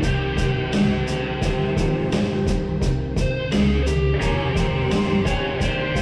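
Slowed-down, reverb-heavy music with guitar over a steady beat of about four sharp hits a second.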